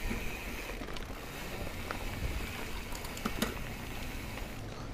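Mountain bike rolling over a dirt trail: steady tyre and trail rumble with scattered clicks and rattles from the bike over bumps.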